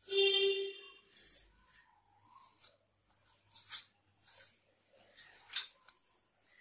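Fingers rubbing oil into maida flour in a stainless steel plate, working in the moyan before kneading: repeated soft scraping strokes against the flour and the metal. It opens with a brief metallic ring from the steel plate.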